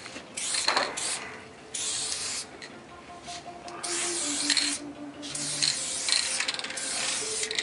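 Aerosol spray-paint can hissing in a series of short bursts with brief pauses between them, as letters are sprayed onto a wall.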